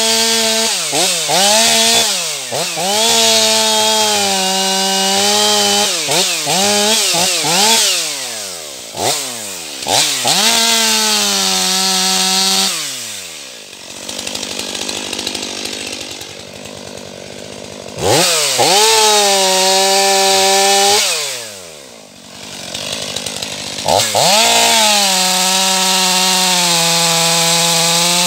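Stihl MS 500i fuel-injected two-stroke chainsaw revved in quick throttle blips and held at high revs, twice falling back toward idle (around the middle and again a little past twenty seconds), then running at steady full throttle for the last few seconds.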